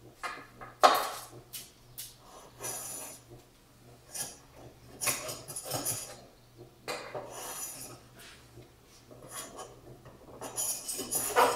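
Small hand plane shaving split-cane bamboo fly-rod butt strips in a steel planing form: a series of hissing planing strokes every second or two. There is a sharp knock about a second in.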